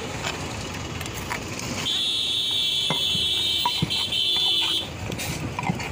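A high, steady electronic buzzing tone, like a buzzer or an electric horn, sounds for about three seconds starting about two seconds in, over street noise. A few light clinks of a metal spoon against the stone mortar are also heard.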